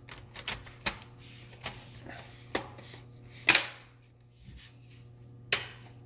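HP laptop's plastic bottom cover being pressed and snapped into place: about half a dozen sharp clicks as its clips catch along the edge, the loudest about three and a half seconds in.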